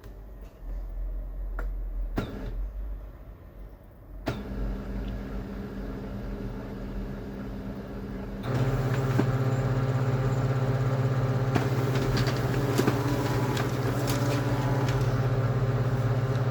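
Kyocera P3145dn laser printer starting up and running: a couple of clicks, a steady hum from about four seconds in, then its drive mechanism running loudly and evenly from about halfway through. It runs without the earlier crackling, its drum drive gear (Z128R) having been replaced.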